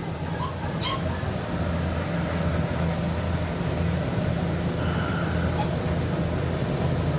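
Engine of farm machinery running steadily at an even speed, a low drone.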